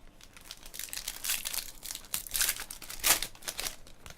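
Trading-card pack wrappers crinkling and tearing as packs are ripped open: an irregular crackle, with the loudest rip about three seconds in.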